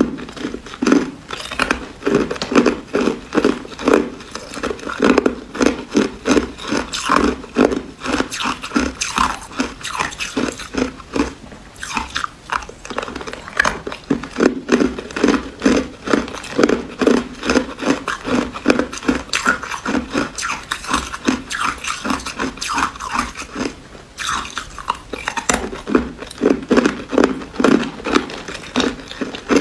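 Thin ice being bitten and chewed: a steady run of crisp crunches, about two a second.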